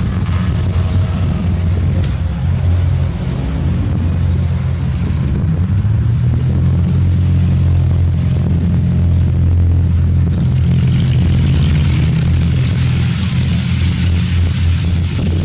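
SF-260 light aircraft's propeller engine droning steadily through a display pass, its note rising slightly about five seconds in. A rushing hiss joins about ten seconds in.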